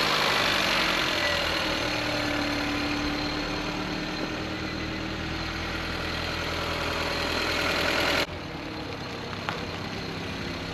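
Honda Civic EF sedan's four-cylinder engine idling just after being started following a tune-up with new spark plugs, fresh oil and coolant. About eight seconds in the sound drops suddenly to a quieter, duller idle.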